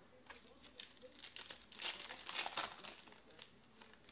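Foil wrapper of a trading-card pack crinkling and tearing as it is handled and opened by hand, the crackle busiest about two seconds in.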